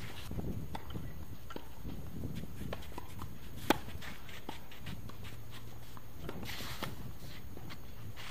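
Tennis rally on a hard court: one sharp racket-on-ball hit about halfway through, the loudest sound, among fainter clicks of distant hits and bounces and the player's footsteps.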